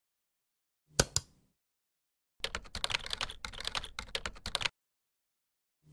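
Two quick clicks about a second in, then rapid typing on a computer keyboard for a little over two seconds. Another click comes right at the end.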